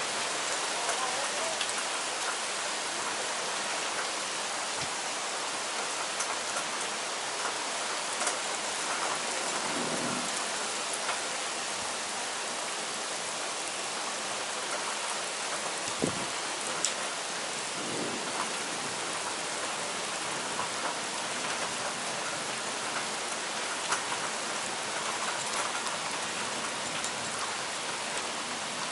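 Heavy rain falling steadily, a dense even hiss, with a few brief louder ticks.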